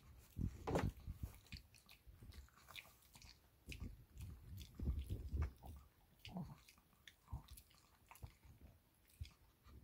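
A Shih Tzu chewing and crunching a napa cabbage leaf: irregular bites and wet crunches, loudest about half a second in and again around four to five seconds in, with quieter pauses between.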